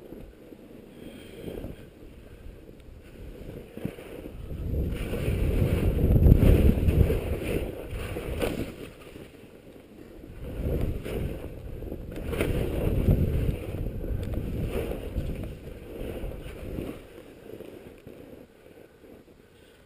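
Wind rushing over a skier's body-worn camera microphone, with ski edges hissing and scraping on groomed snow during a fast descent. The rush swells loud about a quarter of the way in and again just past the middle, then eases off toward the end.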